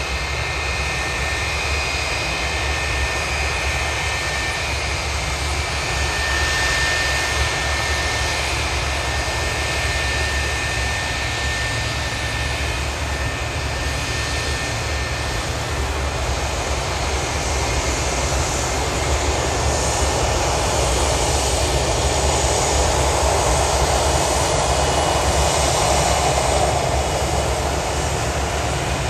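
Boeing 727's three rear-mounted Pratt & Whitney JT8D turbofans running at taxi power: a steady jet whine with a high whistling tone. The noise grows fuller and louder over the last ten seconds as the tail and exhausts swing toward the listener.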